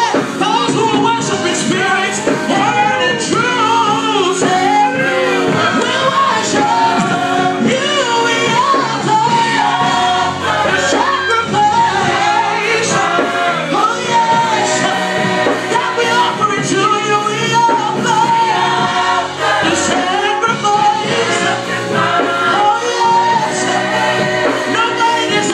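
A choir singing a gospel song over instrumental accompaniment with a steady beat.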